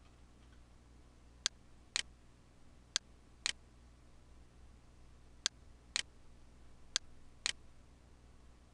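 Sharp, dry clicks, mostly in pairs half a second apart with gaps between the pairs, over a faint steady hum.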